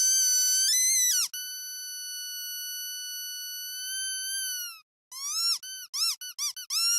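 High-pitched squeaking whistle: a short squeak, then one long held tone of about three and a half seconds that sags slightly at the end, then a quick run of short rising-and-falling squeaks, about five a second, near the end.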